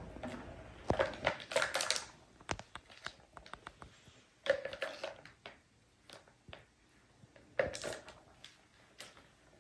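Balls clattering and rolling in the tracks of a plastic tiered cat toy tower as kittens bat at them with their paws. The sound comes as three bursts of rattling clicks, with scattered single taps in between.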